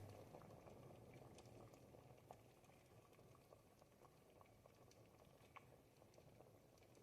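Pot of ribollita, a thick Tuscan bread-and-vegetable soup, simmering on the heat. It makes a faint, steady bubbling with many small, irregular pops and plops.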